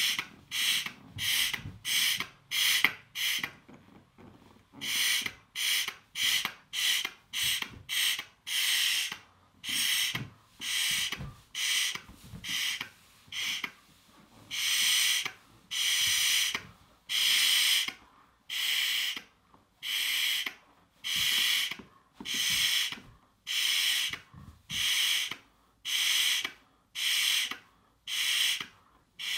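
Breath puffed in repeated bursts into a 24-inch latex balloon being blown up by mouth. Short, quick puffs come first, with a couple of brief pauses, then from about halfway in longer, slower blows, roughly one a second, as the balloon fills.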